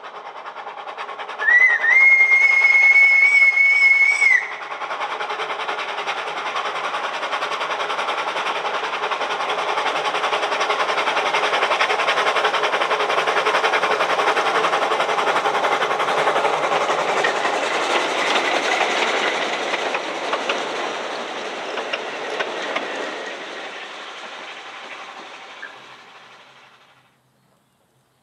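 Narrow-gauge steam train on the Ffestiniog Railway: the locomotive gives one whistle of about three seconds, then the train runs past, growing louder to a peak and fading away.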